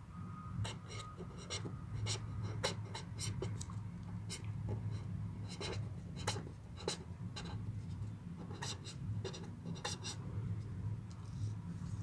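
Felt-tip marker writing on paper: a run of short scratching strokes as the words are written out, over a steady low hum.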